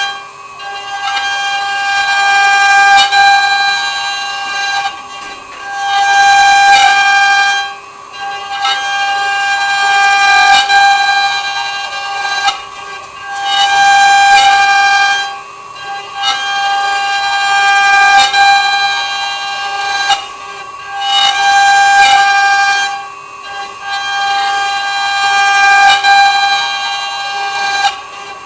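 CNC wood-cutting router running: a steady high whine made of several fixed tones, swelling and easing every few seconds as the cut goes on.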